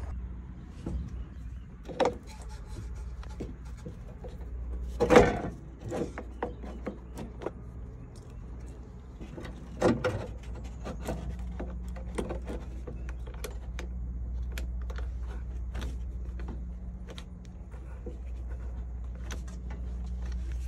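Knocks and clicks of an old 6-volt car battery being set into its compartment under the seat and its cable clamps worked onto the terminals by hand. The loudest knock comes about five seconds in and another about ten seconds in, with many small clicks after, over a low steady rumble.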